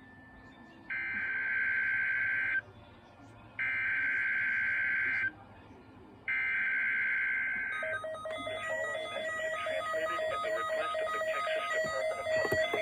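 Three bursts of Emergency Alert System SAME header data tones, each under two seconds long with about a second between them, encoding a Child Abduction Emergency alert. About eight seconds in, a steady attention tone starts.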